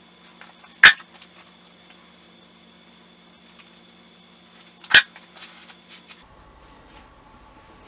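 Two sharp metal clanks about four seconds apart, with a few light clinks after each, as metal engine parts are handled while the aluminium intake manifold is fitted onto a V8 engine.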